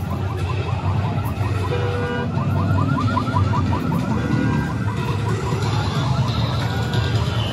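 Siren-like alarm sounding a rapid, repeating rising warble, fading out about six seconds in, over a steady low rumble.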